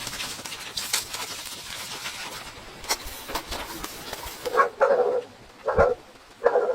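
A dog barking, about four short barks in quick succession near the end, after a stretch of scratchy rustling with scattered clicks.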